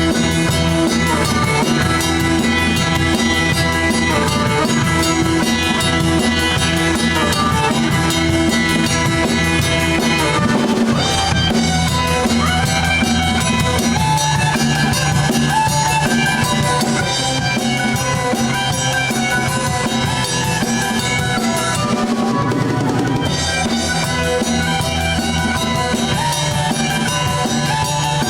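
A live rock band playing an instrumental passage, with drum kit (snare, bass drum and rimshots) and guitar.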